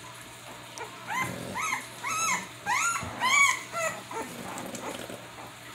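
Two-week-old American Bully puppy whimpering: a run of about seven short, high cries, each rising and falling in pitch, from about a second in until about four seconds, the loudest near the end of the run.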